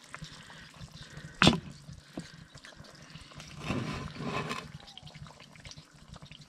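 Stew simmering in a cast iron Dutch oven, with liquid trickling and splashing as a ham hock is lifted out of the pot on a knife and wooden spatula about four seconds in. A single sharp knock, the loudest sound, comes about a second and a half in.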